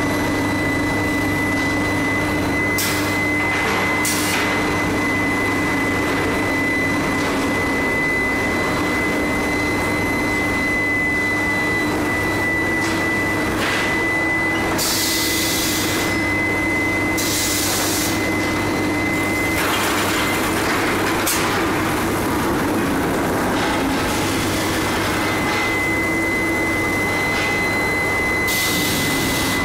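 Steady industrial running noise from a steel-bar induction heating and roller-conveyor line: a constant low hum with a steady high whine over it, and a couple of short hisses about halfway through.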